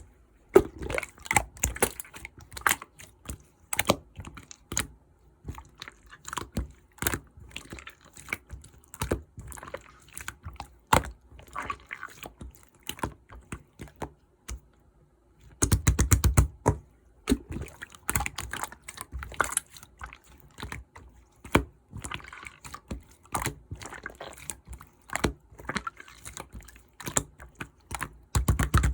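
Emerald clear slime being squeezed and stretched by hand, giving rapid sticky clicks and wet pops. The sound breaks off briefly about halfway through, then resumes.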